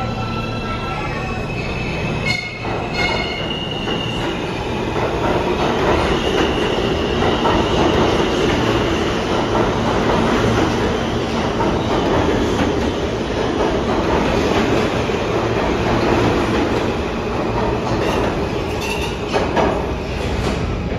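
Alstom R160A subway train pulling out of an underground station and running past close by. High whining tones from its propulsion come as it starts off, then the steady rumble and clatter of wheels on rail as the cars go by, easing a little near the end as the last car leaves.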